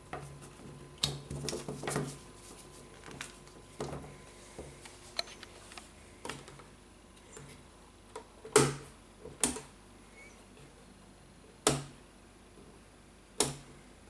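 A string of sharp clicks and knocks from hands handling plug-in cables and working the switch on a homemade generator control panel. A cluster comes in the first couple of seconds, and four louder clicks a second or two apart come in the second half, over a faint steady hum.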